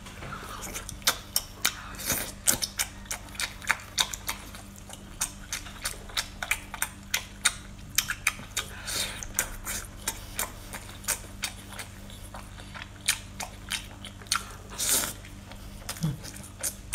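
Close-up eating sounds: a mouth biting and chewing spicy sauced seafood pulled off a skewer, with wet smacks and many sharp crackly clicks, several a second. Two longer hissing sounds come near the middle and near the end.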